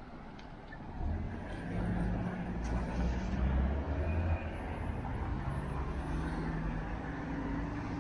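Road traffic: a motor vehicle's engine droning low as it passes on the road, coming in about a second in and loudest around the middle, over steady road noise.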